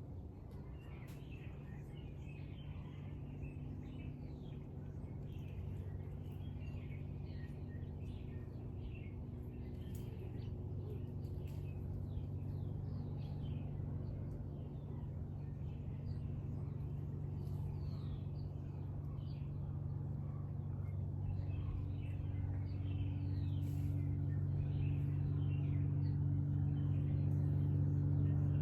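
Many small birds chirping and twittering over a steady low engine drone that grows gradually louder.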